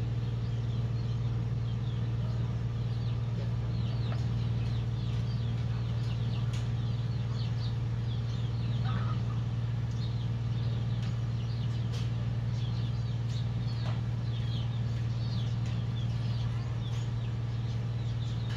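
Chickens clucking and small birds chirping over a steady low hum.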